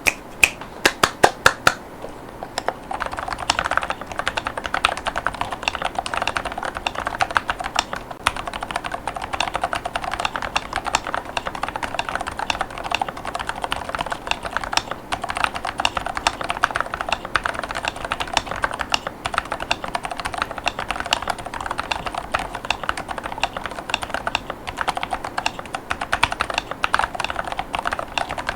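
Typing on a Glorious GMMK3 HE mechanical keyboard with Glorious Panda HE tactile 45gf hall-effect switches and PBT keycaps. A few separate keystrokes come first, then fast continuous typing from about two and a half seconds in.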